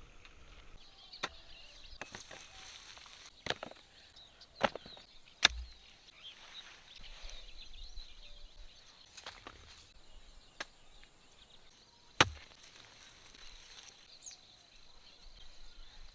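A hand digging tool striking the ground in the potato harvest: five sharp, irregular strikes, four close together and a fifth after a long pause.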